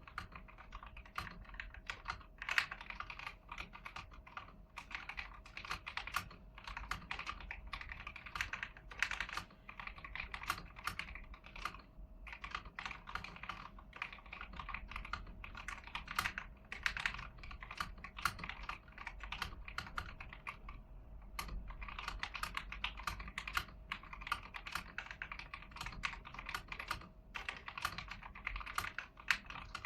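Continuous typing on an AIGO A100 mechanical keyboard with yellow switches, in its stock, unmodified state: fast, uneven key clacks with two short pauses, about twelve and twenty-one seconds in.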